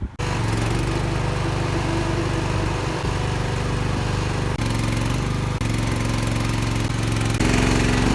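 Mini-excavator's diesel engine running steadily, starting abruptly and jumping suddenly in tone and level a few times.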